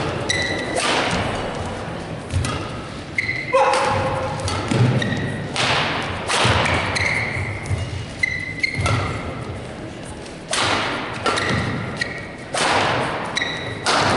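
Badminton rally: rackets smacking the shuttlecock about every one to two seconds, each hit echoing in the hall, with short high squeaks of shoes on the court between shots.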